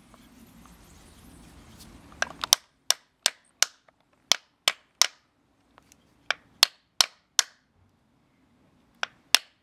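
Sharp metallic taps, a hammer driving a 1996 Toyota Camry distributor shaft into its bearing, in quick groups of three or four with short pauses between them. A faint low hum comes before the first taps, which start about two seconds in.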